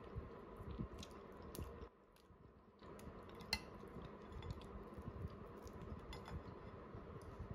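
Metal spoon tapping and scraping against a ceramic plate and toast while spreading baked beans, faint scattered clinks with one sharper clink about three and a half seconds in.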